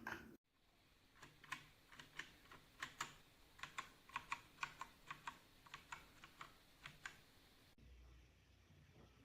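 Keys of a Dierya T68SE mechanical keyboard with clicky blue switches being pressed. There is a quick run of typing at the start, then separate key clicks at about two a second, which stop about seven seconds in.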